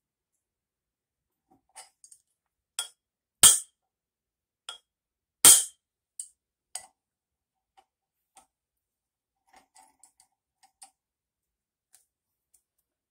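A metal tool tapping on a flywheel puller set on a 1964 Johnson 3 hp outboard's flywheel, to shock the seized flywheel loose. There are about seven sharp metallic taps, the third and fifth much harder, followed by a few faint clicks.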